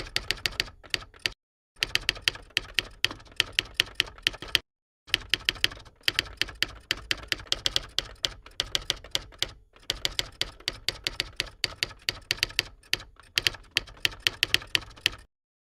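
A typing sound effect: rapid keystroke clicks, several a second, in runs broken by short pauses, stopping just before the end.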